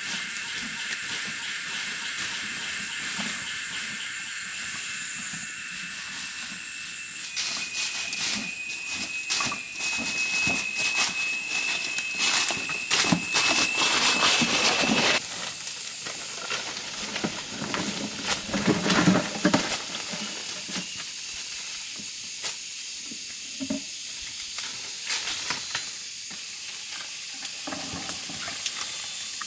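Steady, high-pitched drone of forest insects, with rustling and crackling close by throughout. About fifteen seconds in, the sound changes suddenly, as if at a cut.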